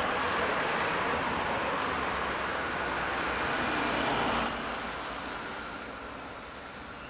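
Road traffic noise on a city street: a steady rush of passing vehicles, loud for the first four and a half seconds, then dropping away and fading.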